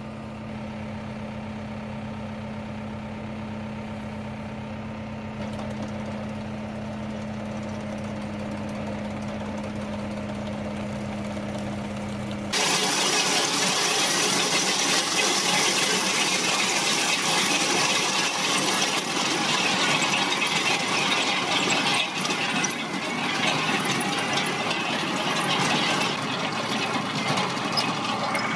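A tractor-driven ditch-cleaning machine running with a steady hum. About twelve seconds in, a cut to a Case 660 trencher's engine working under load while its digging chain churns through soil, a louder, dense clatter.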